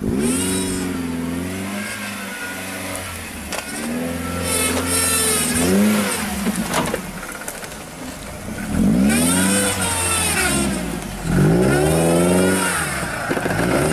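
A lifted off-road 4x4's engine revving hard in several bursts, its pitch sweeping up and dropping back each time the throttle is opened and released.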